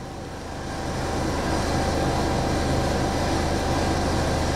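A running 2012 Buick Verano at idle: a steady mechanical hum with a faint whine, growing louder about a second in and then holding steady.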